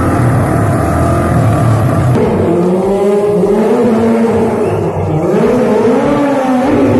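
A stunt quad bike's engine running at a steady, high pitch. About two seconds in, the sound changes to a sport motorcycle's engine revved up and down again and again during stunt riding.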